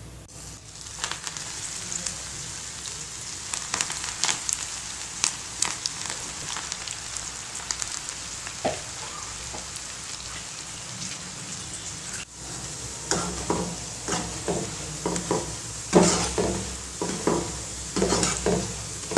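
Bread pakoda batter sizzling and crackling as it deep-fries in hot oil. In the last few seconds a slotted metal spatula stirs and scrapes through the pakodas in the pan, about two strokes a second.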